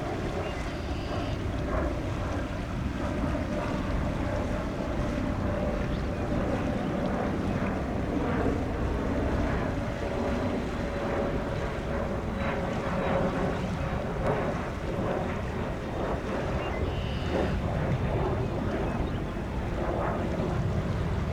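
Jet airliner engine noise: a steady rumble with a faint steady whine above it, mixed with wind buffeting the microphone.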